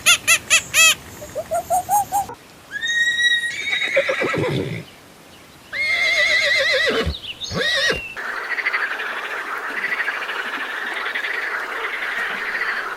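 A horse whinnying twice, each call high and quavering and dropping in pitch at its end. It is preceded by a quick run of repeated squeals and followed by a long, steady, wavering sound.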